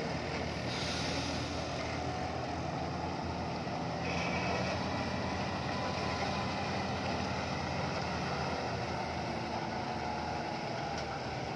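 Hino FM1J heavy truck's diesel engine running with a steady low drone as the loaded truck moves slowly through a bend.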